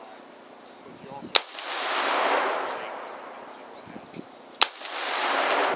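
AR-15 rifle firing .223 PMC 55-grain rounds: two single shots about three seconds apart, each followed by a long rolling echo.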